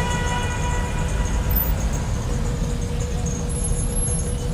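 Road traffic with a steady low engine rumble. A vehicle horn note fades out within about the first second.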